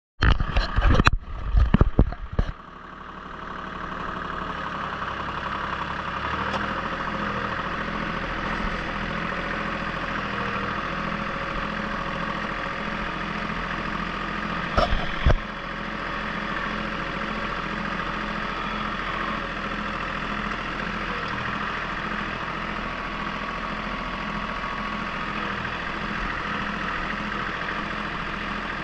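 Compact tractor's engine running steadily as it drives along, with an even low pulse. Several loud knocks in the first two seconds and one brief thump about fifteen seconds in.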